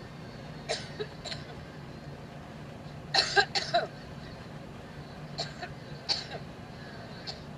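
A woman's coughing fit: short, dry coughs and throat clearing come singly and in bursts, with a louder cluster of several coughs about three seconds in.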